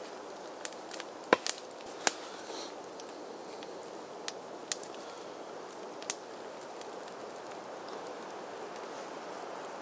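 Sharp wooden knocks and cracks, about seven in the first six seconds, the loudest about a second and a half in, over a steady hiss: firewood being handled and split beside a burning campfire.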